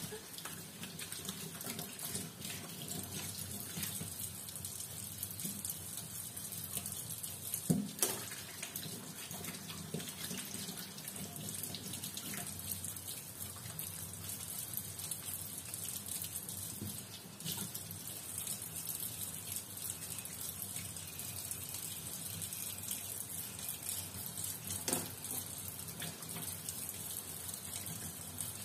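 Kitchen tap running steadily into a stainless-steel sink as guavas are rinsed under the stream. Two short knocks break in, one about eight seconds in and a lighter one a few seconds before the end.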